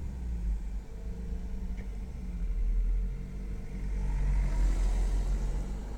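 VW Golf Mk6 1.4 TSI petrol engine running unevenly just after start-up, misfiring; a gentle rev about four seconds in brings a hissing whistle. The owner puts the rough running down to the catalytic converter's fast warm-up mode, with the secondary air pump running.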